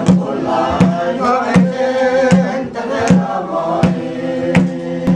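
A group of voices singing a slow chant over a drum struck by hand, its beats falling evenly about every three-quarters of a second.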